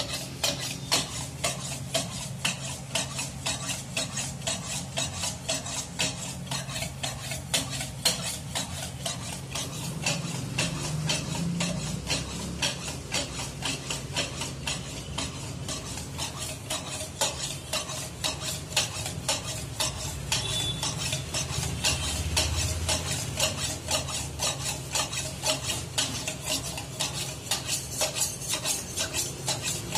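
Steel meat cleaver blade scraped in quick, regular back-and-forth strokes across a large wet sharpening stone, several strokes a second.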